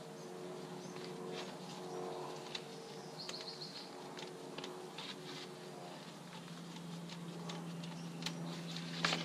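Birds chirping, with one short trill about three seconds in, over light clicks and knocks of a paint sprayer's hose and gun fittings being handled. A faint steady low hum runs underneath and grows a little stronger near the end.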